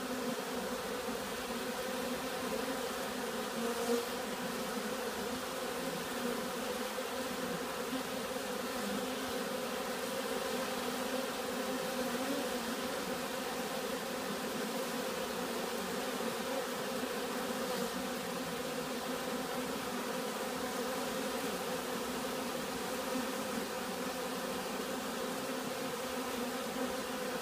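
Many honeybees buzzing at a crowded hive entrance, a dense steady hum of wingbeats from bees flying and milling in and out. The colony is in an agitated state that the beekeeper suspects may be robbing.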